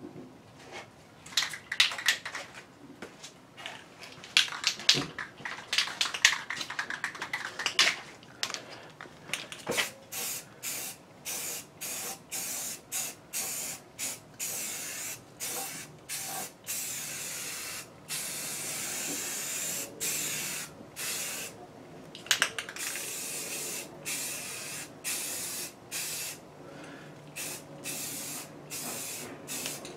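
Paint being sprayed in short hissing bursts, about two a second. The first several seconds hold sharper clicks and rattling.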